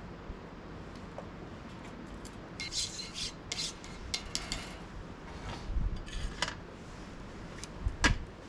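A run of short scraping, rasping strokes, followed near the end by a single sharp knock.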